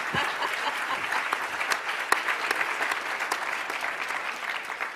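Audience applauding, a dense steady clapping that begins to tail off near the end.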